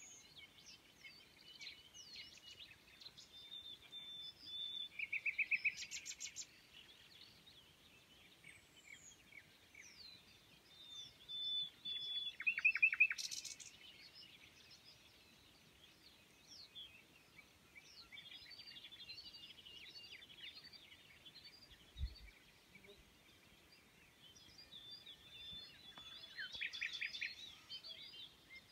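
Several wild birds singing: a steady stream of short chirps and whistles, with a loud rapid trill that comes three times, about five seconds in, about twelve seconds in and near the end. A single dull thump about two-thirds of the way through.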